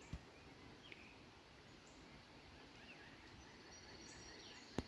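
Near silence with a few faint, scattered bird chirps, and a single sharp click near the end.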